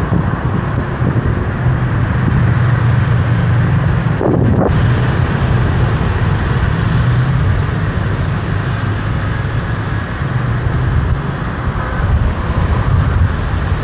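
Steady motor-vehicle noise: a low engine hum with road and wind noise.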